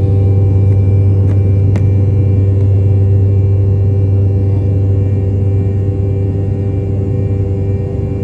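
Jet airliner engines running, heard from inside the cabin: a steady, loud low drone with a steady whine over it. Two faint clicks about a second and a half in.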